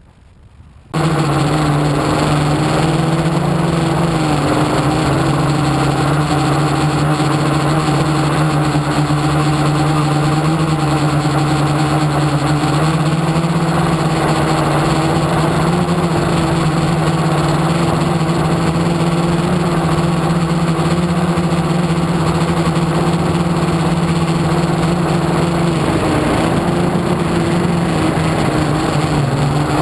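Motor of a radio-controlled FPV model, heard through its onboard camera, running steadily at nearly constant pitch. It starts suddenly about a second in and dips briefly in pitch near the end.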